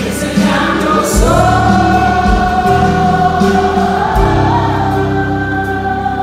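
Live Spanish-language worship song sung by women with band accompaniment: the lead voice slides up into one long held note about a second in, over steady bass and keyboard.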